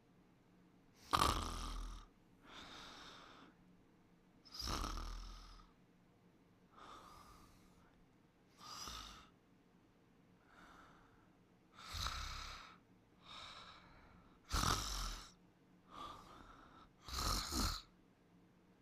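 Snoring in deep sleep: a loud rasping snore about every three seconds, with softer breaths between them.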